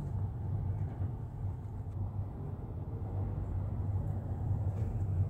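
Steady low rumble of a moving car's tyres and engine, heard from inside the cabin.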